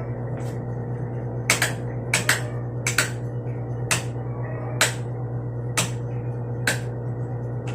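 Sharp, short clicks about once a second, a few coming in quick pairs, over a steady low hum.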